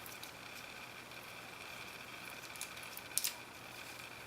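A few faint, sharp clicks of small metal parts being handled: a bicycle rear derailleur's pulley cage and chain being fitted together, the clearest click about three seconds in. Under them is a steady faint hum and hiss.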